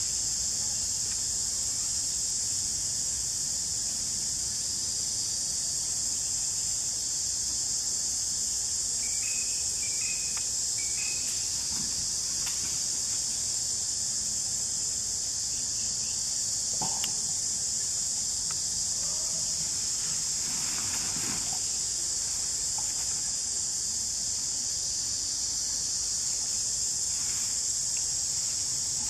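Steady, high-pitched insect chorus droning without a break, with a few faint short chirps about a third of the way in.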